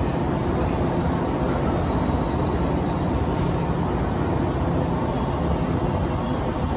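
Steady hum and rumble of a yellow JR West 117-series electric train standing idle at the platform.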